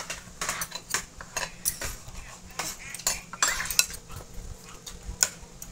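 Metal spoon clinking and scraping against a ceramic bowl of rice as it is eaten from: a quick, irregular series of light clinks.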